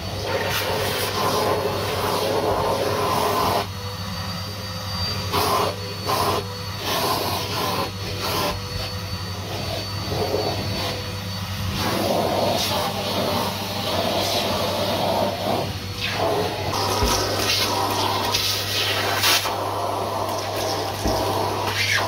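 Numatic Hetty cylinder vacuum cleaner running steadily, its suction rushing and changing tone as the wand and crevice tool are worked over carpeted stair treads. Short spells of crackling and rattling come through, as small bits of debris are sucked up.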